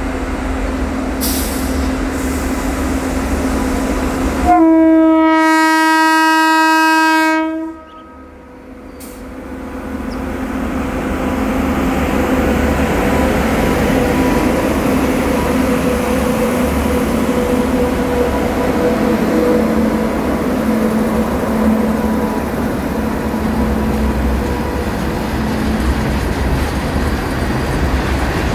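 Indian Railways WAP7 electric locomotive's air horn sounding one long steady blast of about three seconds, cutting off sharply, over the running noise of the approaching train. After it, twin WAP7 locomotives and empty BOXN wagons pass close with a steady rumble of wheels on rail.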